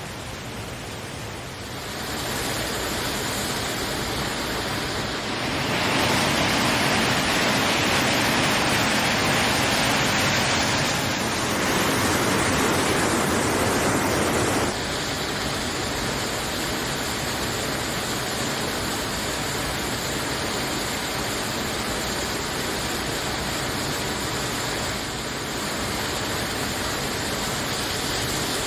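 Steady rushing water of a waterfall, louder for several seconds in the middle, with sudden changes in level like cuts between shots.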